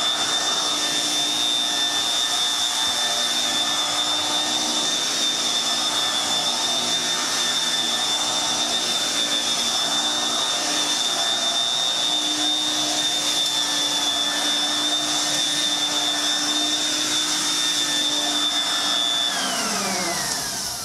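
Sears Kenmore Kwik Sweep electric stick vacuum running on high speed, a steady hum with a sharp high whine. Near the end it is switched off and the motor winds down, its whine falling in pitch.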